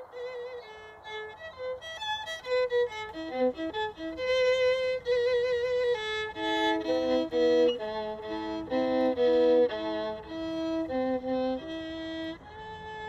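Solo violin playing a melody with vibrato. From about six seconds in, two notes sound together (double stops), and it ends on a held note.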